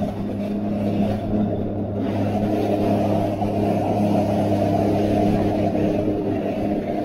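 Jet ski engine running steadily under way, a continuous drone with rushing noise mixed in. The sound is dull, with little above the low and middle range.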